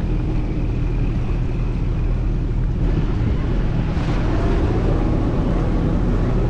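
Boat motor running steadily with a low rumble, under wind and water noise.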